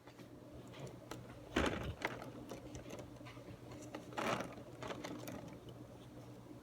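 Scattered light clicks and knocks, with two louder knocks about a second and a half and four seconds in, over a faint steady low hum.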